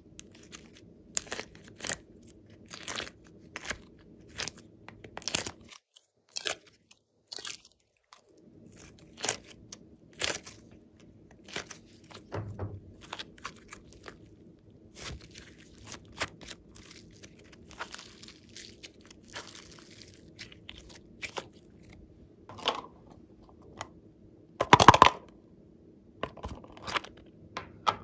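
Hands squishing, pulling and folding glossy slime and soft clay, giving irregular sticky clicks and crackly pops. There is a brief lull about six seconds in and a louder run of crackling near the end.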